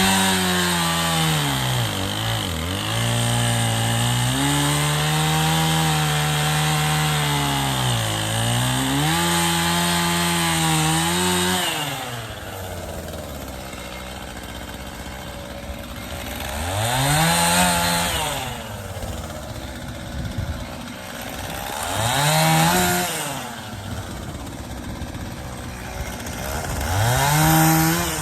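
Two-stroke chainsaw held at high revs, its pitch sagging and recovering as it bucks a firewood round. About twelve seconds in it drops to idle, then it is blipped up to speed three times, about five seconds apart.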